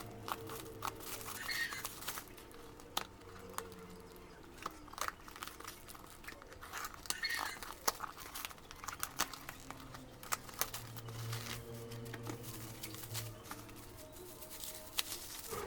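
Smartphone box packaging being handled and opened: plastic wrap crinkling and tearing, with scattered irregular clicks and taps of cardboard and plastic.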